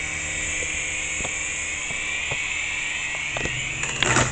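Syma S107 toy coaxial RC helicopter's small electric rotor motors whining steadily at full throttle on a nearly dead battery, which can no longer hold it up. Near the end there is a short clatter of sharp knocks.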